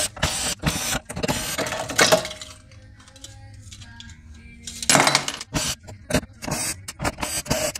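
Clicking and clattering of small metal screws and plastic parts being handled and dropped while dismantling an EV inverter, with short runs of a cordless drill-driver backing out screws.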